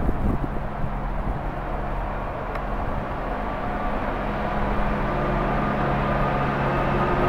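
Diesel engine of a yellow on-track rail maintenance machine approaching along the track: a steady low hum that grows gradually louder toward the end.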